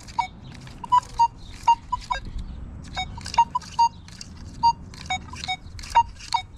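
Nokta Makro Legend metal detector giving repeated short beeps as its coil is swept back and forth over a target, mostly at one pitch with a few slightly lower ones, among sharp clicks. It is a coin-like signal, the same as the wheat cent just dug, and it sounds like two signals to the detectorist.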